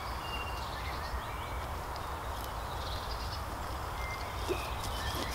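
Woodland ambience: a steady low rumble of wind on the microphone, with a few faint, short bird chirps scattered through it.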